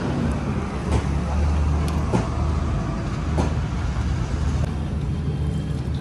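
Steady low rumble of passing road traffic and vehicle engines, with a few sharp clicks about one, two and three and a half seconds in.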